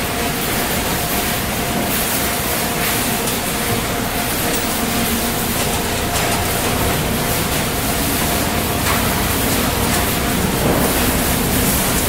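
Garbage-sorting plant machinery running: conveyor belts and their drive motors make a steady mechanical rumble with a faint, constant mid-pitched whine.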